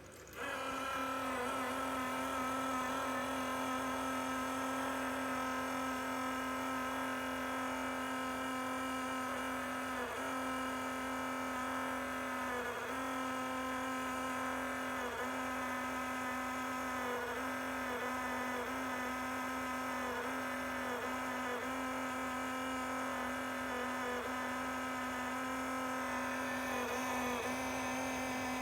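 Failed pump of an Enermax Liqmax III all-in-one liquid CPU cooler running with a loud, steady buzzing whine of several tones. It starts suddenly, and its pitch dips briefly every second or two.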